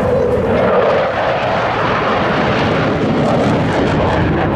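Dassault Mirage 2000 fighter flying overhead, its single afterburning SNECMA M53 turbofan making loud, steady jet noise.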